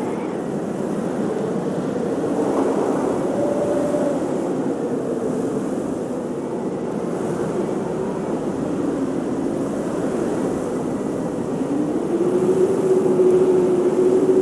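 Blizzard wind blowing in gusts: a low, steady rush with a faint howling tone that wavers in pitch, swelling about two seconds in and again, louder, near the end.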